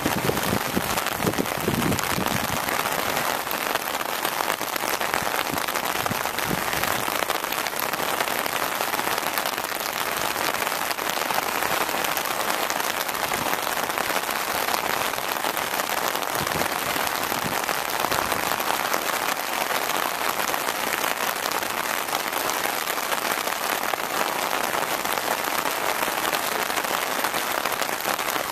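Steady rain falling, a dense even patter.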